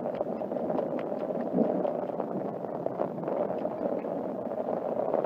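Heavy pouring rain falling on an umbrella: a steady dense noise with many scattered sharp ticks of single drops.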